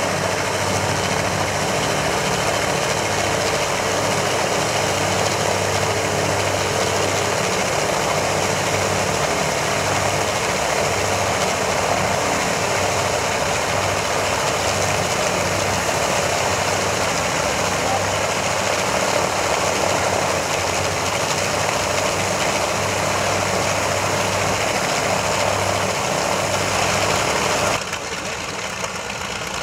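Lockheed Super Constellation's four Wright R-3350 radial piston engines running steadily at low power, a low pulsing drone with a broad rush of propeller and exhaust noise; the sound drops somewhat near the end.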